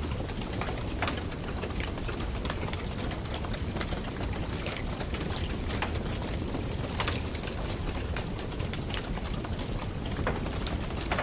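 Wood campfire burning: a steady hiss with frequent irregular crackles and pops of the burning wood.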